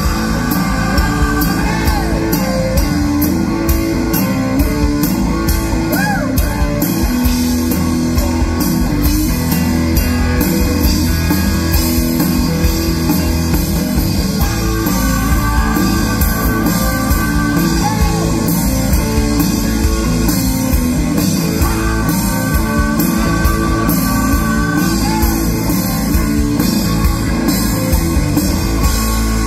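A rock band playing live, with electric guitar and drum kit under a singing voice, loud and steady throughout.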